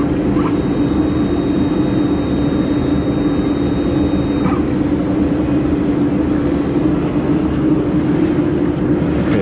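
Steady whirring drone of a running laser welding machine and its cooling equipment, with a low humming tone held throughout. A faint high whine stops about halfway through.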